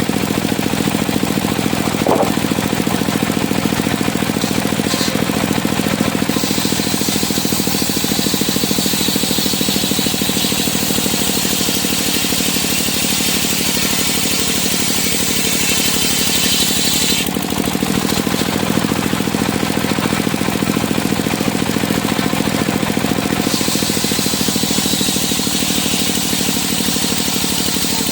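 Engine-driven circular sawmill running steadily, with a bright hissing whine coming in twice, for about ten seconds and again near the end, as the blade cuts through timber.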